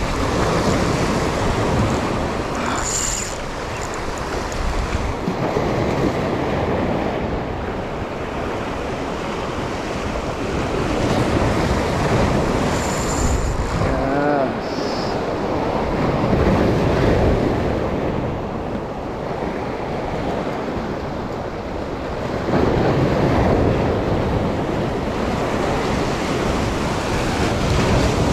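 Rough-sea surf breaking and washing over the rocks of a breakwater in repeated surges every few seconds, with wind buffeting the microphone.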